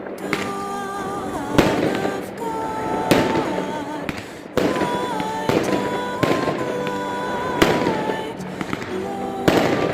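Fireworks display shells bursting with sharp bangs about every one to two seconds, over music with a wavering melody.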